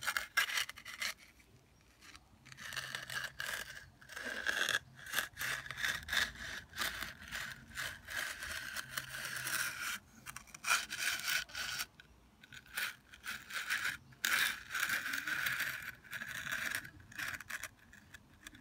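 Steel hand edger scraping along the edge of fresh, wet concrete in repeated back-and-forth strokes with short breaks, rounding off the slab's edge against the formwork.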